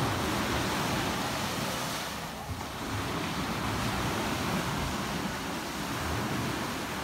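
Steady rushing of sea surf breaking on the shore, mixed with wind buffeting the microphone.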